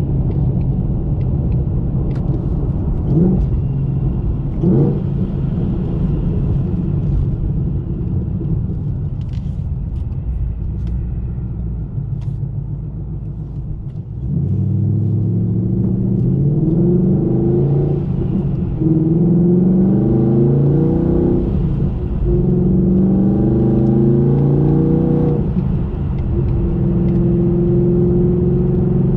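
Supercharged 2019 Mustang GT V8 with long-tube headers and free-flowing exhaust, running at a low rumble with two quick blips of the throttle a few seconds in. About halfway through it pulls harder and gets louder, its pitch climbing in three rising pulls with short gaps between them, the pattern of upshifts through a manual gearbox, then holds steady near the end.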